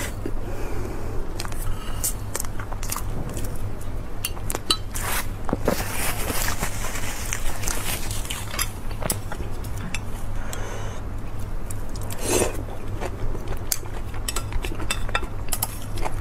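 Close-miked eating sounds: chewing and small mouth clicks, with a fork clicking and scraping against a ceramic plate, over a steady low hum.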